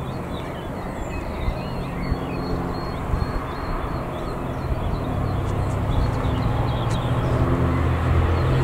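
Electric freight train approaching, its low rumble growing steadily louder. Birds chirp in the first half.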